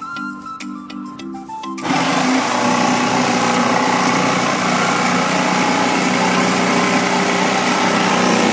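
Electric jigsaw cutting through a wooden plank, its motor and reciprocating blade running steadily and loudly. It starts suddenly about two seconds in, after a short stretch of soft music.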